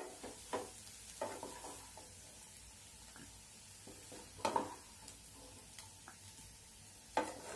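A spatula scraping and scooping cooked potatoes in a nonstick pan and tipping them into a bowl: a few soft scrapes and knocks, the strongest about four and a half seconds in and near the end.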